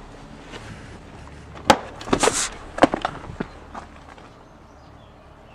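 Footsteps on old weathered wooden planks: a handful of irregular knocks and one short scrape, bunched in the middle and fading out toward the end.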